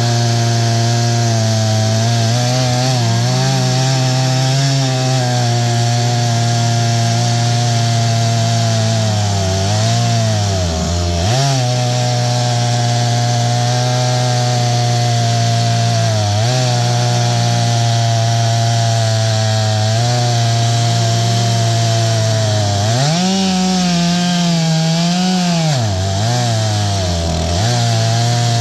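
Stihl MS661 two-stroke chainsaw ripping lengthwise through a pine log in an Alaskan mill, its 36-inch bar running full chisel chain. The engine is held at high revs under load, bogs down briefly a few times, and its revs jump sharply for about two seconds a little past the middle.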